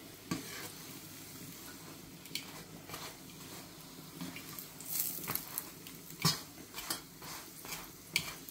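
Spatula knocking and scraping against a non-stick frying pan as a paratha is pressed and turned, a series of irregular clicks and knocks over a faint sizzle of the frying paratha.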